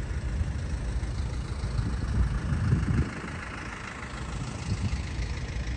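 A vehicle engine idling with a low, steady rumble.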